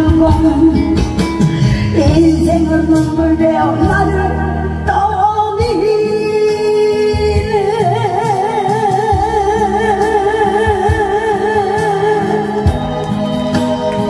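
A singer performing over loud amplified backing music; about halfway through, the singer holds one long note with a wide vibrato for about five seconds.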